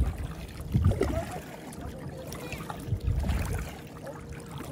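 Water lapping against a stand-up paddleboard on a lake, with uneven low rumbling surges of wind on the microphone, strongest about a second in and again past the middle.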